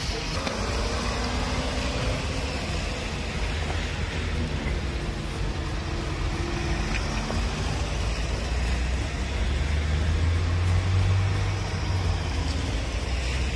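Ford Transit fire-brigade van's engine running as it pulls away and drives past, with a low rumble and street noise that grow loudest about ten seconds in as the van comes close.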